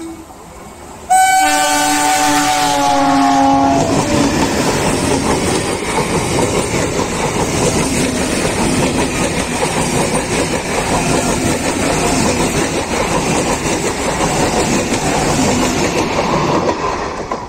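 Eastern Railway EMU suburban local train sounding one long horn blast of about three seconds, then passing close by with a steady loud rumble and the clatter of its wheels over the rail joints, easing off near the end.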